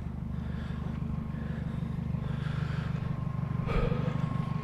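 A vehicle engine idling steadily, a low even hum, with a brief soft rustle near the end.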